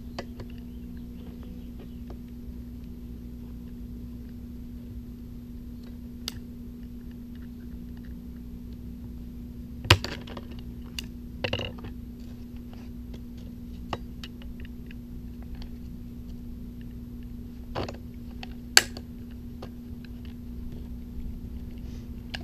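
Small scattered clicks and scrapes of a screwdriver and a utility knife prying at the plastic housing of a Bernzomatic TS3000 trigger-start torch, with two sharp cracks, one about halfway through and one later on. Under it runs a steady low hum.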